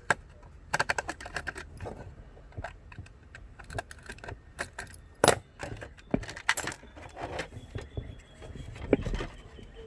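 Irregular clicks, snaps and rattling clatter as a solar charge controller's case is pried open and handled with tools, with a few sharper clicks about halfway through and near the end.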